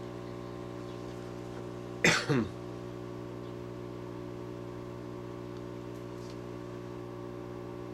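A person gives a short two-part cough about two seconds in, over the steady hum of a hot air rework station's blower running.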